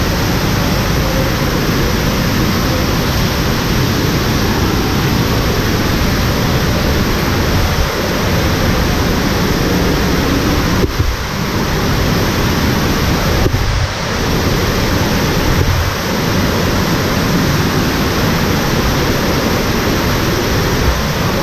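Floodwater pouring down a cave shaft: a loud, steady rushing of falling water, the stream in spate.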